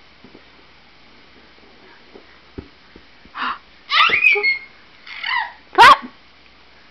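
A baby's high-pitched squeals and shrieks: a few short excited cries after about three seconds of quiet, the loudest and sharpest one rising in pitch near the end.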